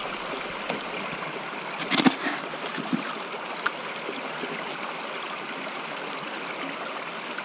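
Shallow stream running steadily, its water washing through an aluminium sluice box. A few short knocks stand out about two seconds in and again about a second later.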